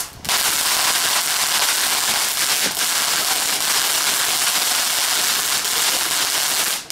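Ground fountain firework spraying sparks: a steady hiss with faint crackles, stopping abruptly near the end.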